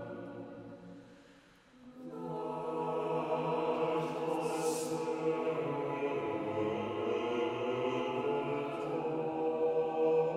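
Mixed choir singing a slow, unaccompanied sacred motet in English: a held chord dies away, and about two seconds in the voices enter again on a new sustained chord that holds, with a brief sung 's' consonant a few seconds later.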